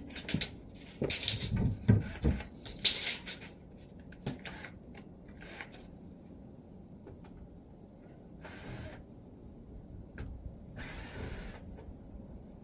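Hard pieces being handled and moved, with knocks, clatter and scraping, loudest in the first three seconds. Two short scraping sounds follow later on.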